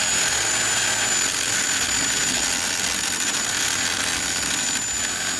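Cordless drill running steadily under load with a thin, high motor whine, boring out a hole through the vehicle's firewall to enlarge it.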